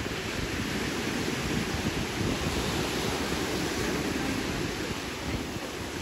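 Steady wash of sea surf on the shore mixed with wind rumbling on the microphone.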